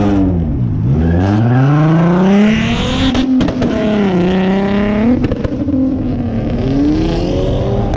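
A Volkswagen Golf hatchback's engine revving hard as it pulls away, its pitch climbing steadily, dropping at an upshift about three seconds in, climbing again, then dropping at a second upshift about five seconds in and settling into a lower, steadier note.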